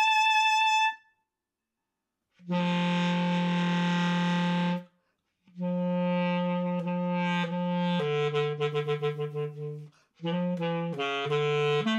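Solo basset horn. It finishes a held high note, falls silent for about a second and a half, then plays a long low note. After a short break comes a phrase of shorter notes that turns into a quick, fluttering passage about eight seconds in, and near the end a run of quick notes.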